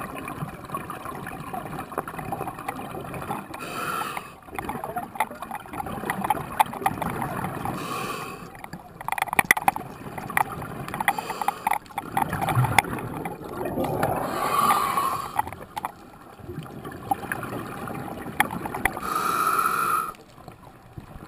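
Scuba regulator breathing heard underwater: a hiss with each inhale and a bubbling gurgle of exhaled air, repeating about every four to five seconds.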